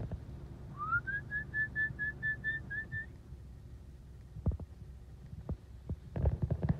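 A person whistling, about a second in. One note slides upward, then about nine short notes repeat quickly on the same pitch for about two seconds. A few sharp knocks and clicks follow, bunched near the end, over a steady low hum.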